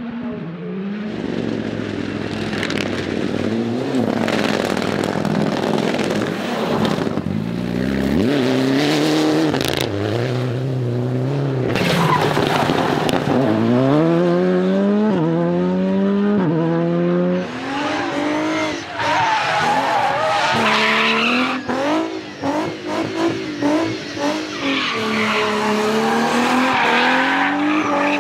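Rally car engine revving hard and shifting up through the gears, the pitch climbing in steps, with tyre squeal as the car slides. In the second half the engine note turns choppy, cutting in and out quickly as the throttle is lifted and blipped.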